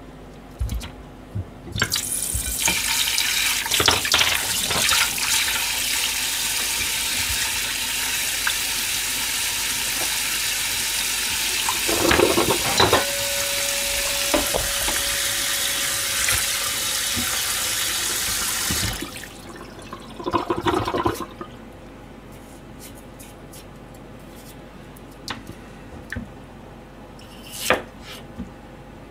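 Kitchen tap running into a stainless-steel bowl in a steel sink, a steady splashing hiss that starts about two seconds in and is turned off after about seventeen seconds. A few knocks follow, and near the end a knife cuts on a plastic cutting board.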